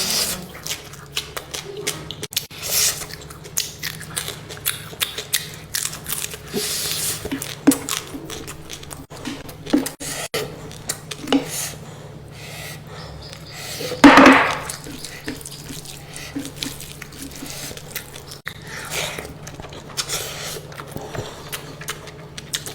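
Close-miked eating sounds: a person chewing, with frequent wet mouth clicks and smacks. About halfway through there is one brief loud burst.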